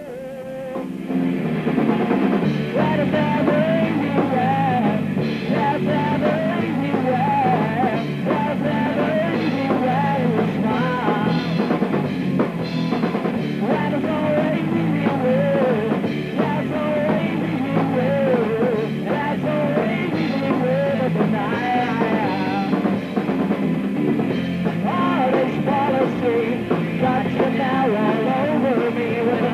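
Punk rock band playing a song, with a drum kit and a male voice singing, coming in at full volume about a second in.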